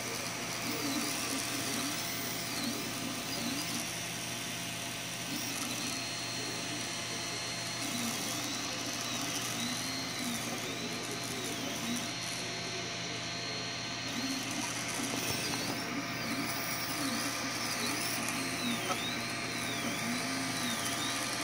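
MakerGear M2 3D printer printing a part: its stepper motors whine in repeated rising-and-falling sweeps as the print head moves back and forth, over a steady whir of cooling fans.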